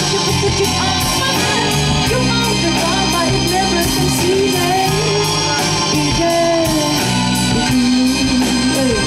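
Live band playing amplified pop-rock, a woman singing into a microphone over electric guitar, bass guitar and drums.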